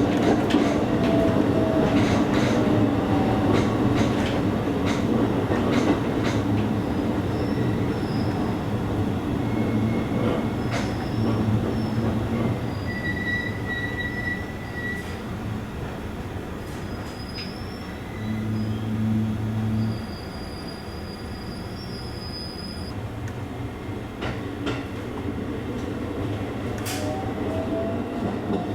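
Electric train running on the rails with repeated rail-joint clicks and short high brake squeals, slowing as it comes into a station and growing quieter about two-thirds of the way in. Near the end a motor whine rises in pitch as it pulls away.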